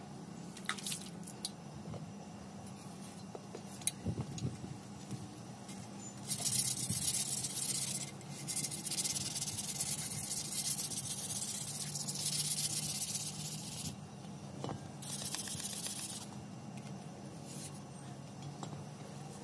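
Coarse P220 sandpaper rubbing hard on a motorcycle exhaust header pipe, scraping off caked-on dirt. The rubbing comes in spells of a few seconds, starting about six seconds in, after a few light clicks of handling. A low steady hum runs underneath.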